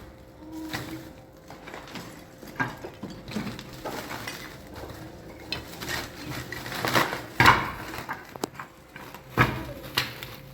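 Irregular clatter and knocks of household objects being handled, the loudest a few sharp knocks about seven seconds in.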